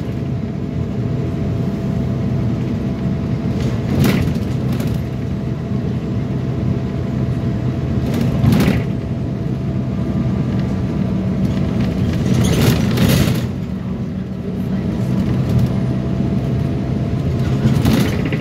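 Optare Tempo single-decker bus under way, its engine running with a steady drone and a faint whine. A few brief louder clatters come about four seconds apart.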